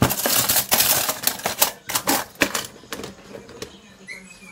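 Stainless steel spoons and forks clattering against each other and the sides of a plastic utensil holder as they are dropped in: a dense run of metallic clinks for about two seconds, then scattered clicks that die away.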